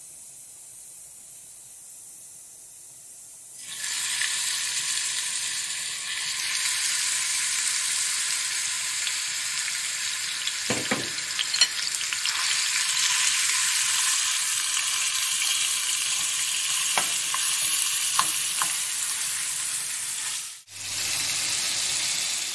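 Ground meat frying in hot oil in a nonstick pan. After a few seconds of faint hiss it breaks into a loud, steady sizzle, as if the meat has just gone into the oil. A metal spoon stirs and breaks it up, clicking against the pan a few times, and the sound cuts out for a moment near the end.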